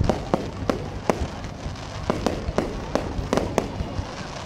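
Fireworks display: a rapid, irregular run of sharp bangs from bursting aerial shells and ground-fired effects, about three a second.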